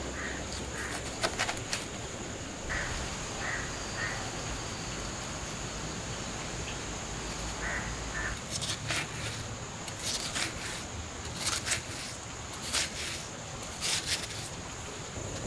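A knife cutting into a halved watermelon, a run of short crisp cuts from about eight and a half seconds in, over birds calling and a steady high-pitched drone.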